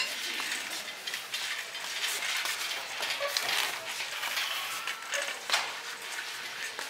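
Store background noise: a steady hiss with scattered light clatters and clinks of items being handled.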